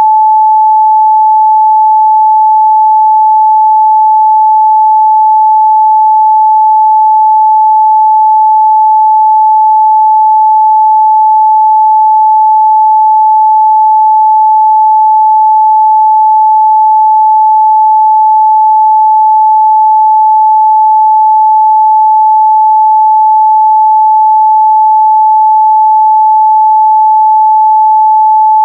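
Steady pure 867 Hz sine-wave test tone, one unbroken loud pitch with no change in level.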